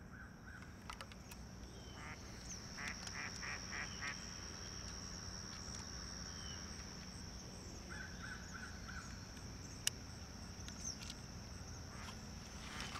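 Faint lakeside ambience: a steady high insect drone, with a distant bird calling twice in quick runs of four or five short notes, and a single sharp click near the end.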